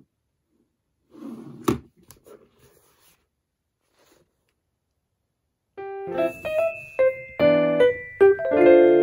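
A short rustle of handling ending in a sharp knock of an object set down on a desk, a few faint rustles, then quiet. From about six seconds in, light background music on electric piano begins, a bright tune of short notes over held chords.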